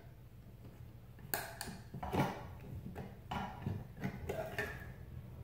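Pop-up sink stopper knocking and clicking in the drain opening as it is pressed and worked against the pivot rod, trying to make its slot lock onto the rod; a string of irregular short knocks from about a second in, the stopper not yet engaging.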